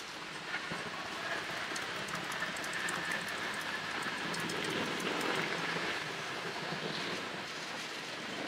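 Ice being scooped and stirred in a plastic cooler box: a steady scraping rattle of many small clicks.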